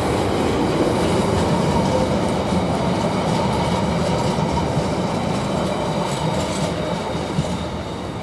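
Wagons of a lightly loaded container freight train rolling past at close range, a steady rail noise that eases slightly near the end.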